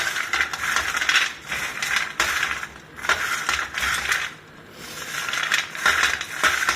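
Roasted almonds clattering against each other and the dish as they are tossed with salt to coat them evenly, in bouts of about a second with a brief lull about four and a half seconds in.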